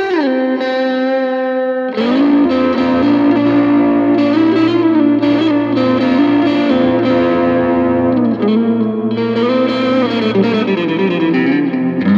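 Mexican-made Fender Stratocaster with Tupelo Bear pickups, played through a Knight of Tone pedal and an Ace Colt amp, playing improvised lead lines. A held note bends down right at the start, and a new phrase is struck about two seconds in.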